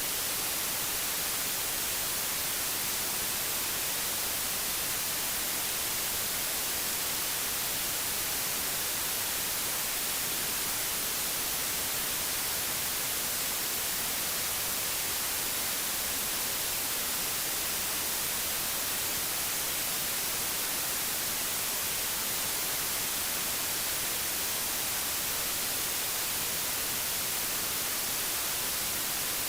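Pure digital white noise: a steady, even hiss with no change in level.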